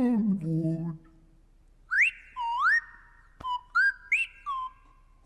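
Clanger whistle-speech in the style of a slide whistle: four or five quick rising swoops, each settling into a held note, with a short click partway through.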